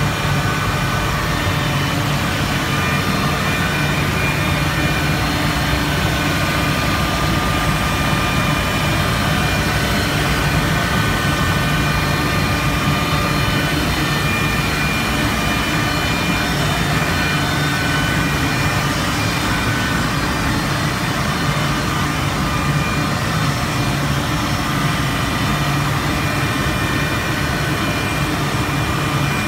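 Steam boiler plant room in operation: a steady, loud machinery roar with a low hum underneath and faint high whines that come and go.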